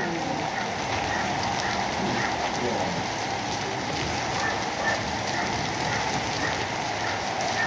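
Hail and rain falling hard on a flooded concrete yard: a steady, dense hiss of drops and small hailstones striking the water, with fine ticking from the pellets.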